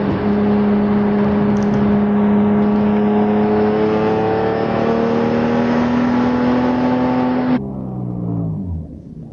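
BMW E46 M3 with Gruppe M parts, its 3.2-litre S54 straight-six pulling hard under full throttle in a manual gear. The revs climb slowly and steadily for about seven and a half seconds. Then the throttle is suddenly closed and the revs fall away.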